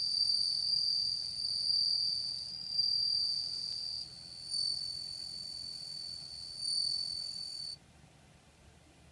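Male bell cricket (suzumushi) singing: one clear, high ringing tone held on with several swells in loudness, stopping suddenly near the end.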